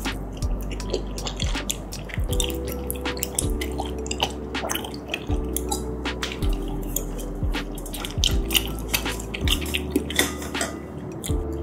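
Close-miked wet mouth sounds of eating tteokbokki with glass noodles: a noodle slurp, then chewing with many sharp, moist clicks. Background music with a steady bass line and held chords plays underneath.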